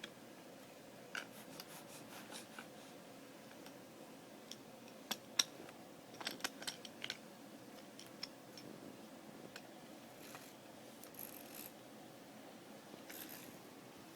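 Faint handling noises: scattered light clicks and brief scrapes, with a cluster of sharper clicks around the middle.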